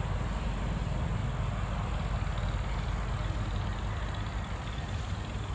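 Steady outdoor background rumble with a soft hiss and no distinct events, like distant traffic; a thin steady high tone runs through it.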